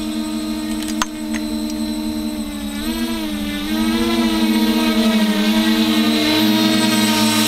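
Small FPV quadcopter's electric motors and propellers whining steadily in a hover. The pitch wavers about three seconds in and again a little later, and the whine grows louder from about four seconds in. A single sharp click comes about a second in.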